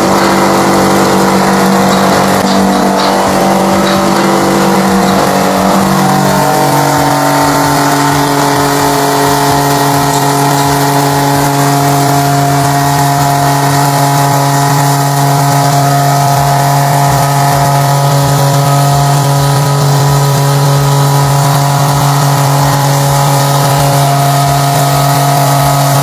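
A Hachiro HPW2.5 158IM1 single-phase 2500 W electric high-pressure washer (150 bar) runs under load while its jet sprays a wooden crate: a steady motor-pump hum under a loud hiss of water. The hum drops in pitch about six seconds in and then holds steady.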